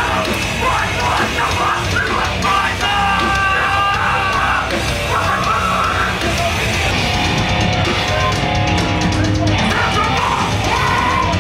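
A live heavy metal band playing loud: distorted guitars, bass and drums, with vocals over them.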